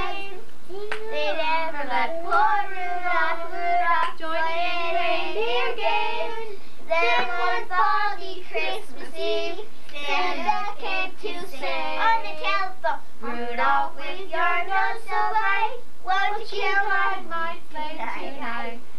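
Young children and a woman singing a song together.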